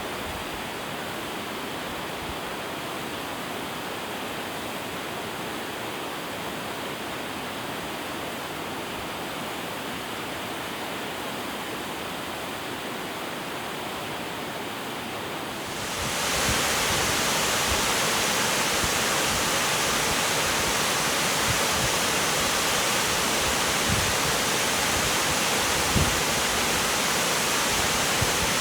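Shirahige Falls' water rushing steadily. About halfway through it becomes louder and brighter and stays so, with a few short low bumps.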